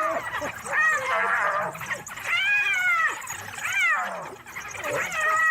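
A wounded prey animal, still alive in a predator's grip, crying out in distress: several high, wailing calls, each rising and falling in pitch.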